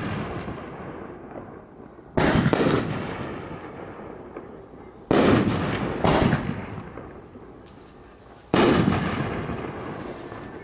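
Consumer aerial fireworks shells bursting overhead: about five sharp bangs a second to three seconds apart, some in close pairs, each trailing off in a long fading echo.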